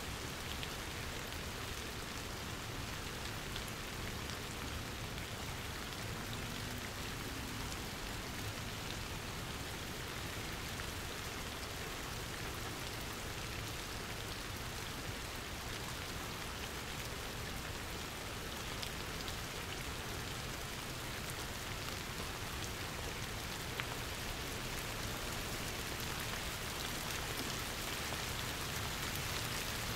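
Steady rainfall, an even wash of drops hitting surfaces, growing slightly louder near the end.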